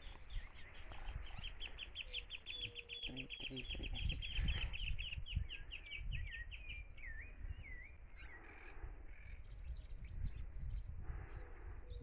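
A small songbird sings a fast, even trill of high notes lasting about four seconds, then a few slurred notes that dip and rise. Wind rumbles on the microphone underneath.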